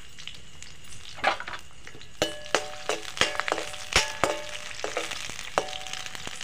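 Green chillies sizzling in hot oil in an aluminium kadai. From about two seconds in, a metal spoon stirs them and knocks against the pan several times, each knock leaving a short metallic ring.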